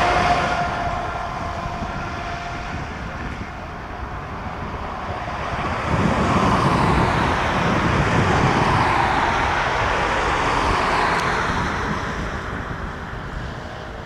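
Jet engines of an Airbus A321 rolling past on the ground: a steady whine and rush that swells from about six seconds in and fades near the end.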